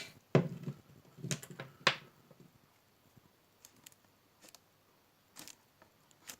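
Light knocks and clicks of small hard objects being handled and set down. The three loudest come in the first two seconds, then a few faint taps.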